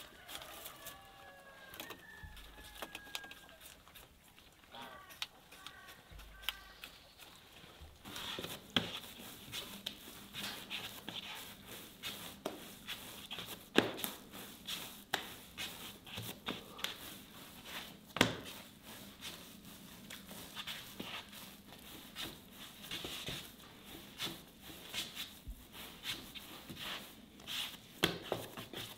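Chickens clucking, short pitched calls in the first few seconds. After that come many irregular sharp taps and clicks, with a few louder knocks.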